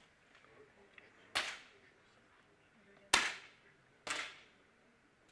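Three sharp shots from 10 m air pistols on the firing line, about 1.4, 3.2 and 4.1 seconds in. The middle shot is the loudest.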